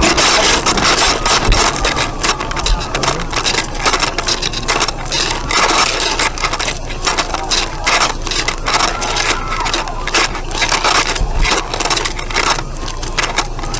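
Continuous rattling and clattering of loose objects and building fittings shaken by an earthquake, dense rapid knocks and clinks without a break.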